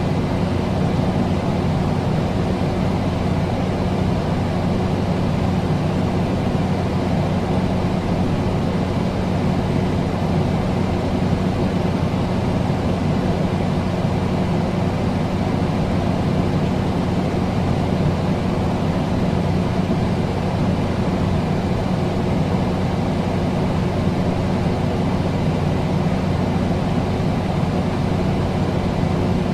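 Air conditioner running steadily: even rushing airflow from the fan with a low motor hum underneath.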